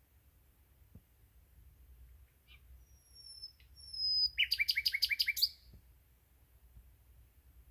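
Common nightingale singing: faint notes, then long, drawn-out whistles, then a loud, rapid burst of about six repeated notes about four seconds in, followed by a pause between phrases.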